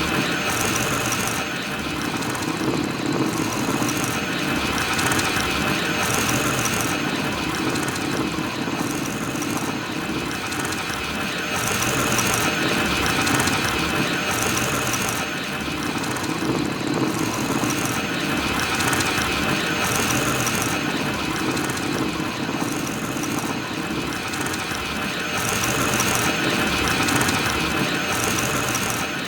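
BB-8 droid's normal-speed rolling sound effect: a steady mechanical rolling noise of the ball-shaped droid, repeating in an even loop.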